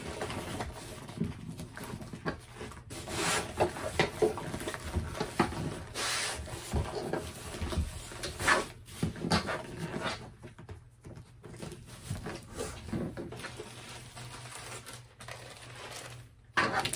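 A diamond painting canvas with its plastic cover film being rolled up by hand on a tabletop: irregular rustling and rubbing, with a louder rustle near the end.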